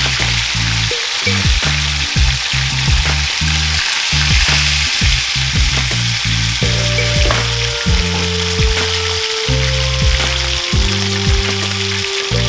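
Whole parrotfish deep-frying in hot oil in a stainless steel pan, a steady dense sizzle. A background music track with a pulsing bass line runs underneath.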